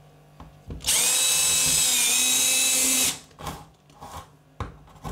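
Cordless drill running for about two seconds, boring a small hole through the thin plywood skin of a hollow-core door, with a high steady whine that dips slightly midway.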